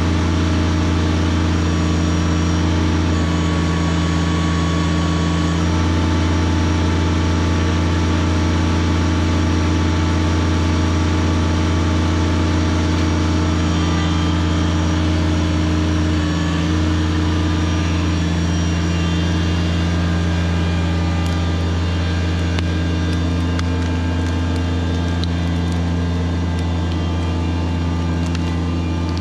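Kubota BX23S subcompact tractor's three-cylinder diesel engine running steadily under load as its backhoe drags a fallen tree through pond water. A loud, even engine note that barely changes in pitch.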